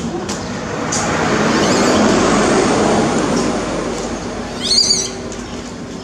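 A baby monkey gives a short, high-pitched squealing cry near the end, over a rushing noise that swells and fades across a few seconds.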